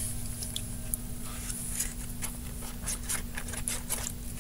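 Irregular small clicks, taps and scrapes of hands handling plastic bottles and a slime container, over a faint steady hum.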